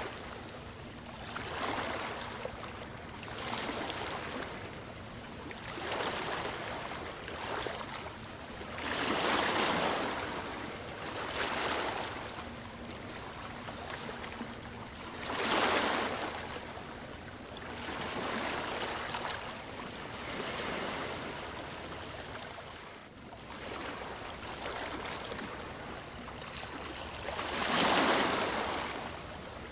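Sea waves breaking and washing in, swelling and fading every few seconds, with the biggest waves about halfway through and near the end.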